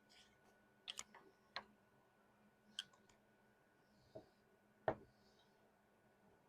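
Scattered light clicks and taps of small painting things being handled, such as gouache paint containers and a brush: about six short knocks spread out, the loudest about five seconds in, over a quiet room.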